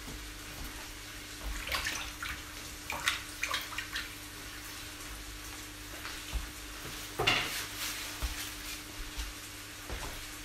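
Hands being washed under a kitchen tap, in several short splashing bursts over a steady low hum.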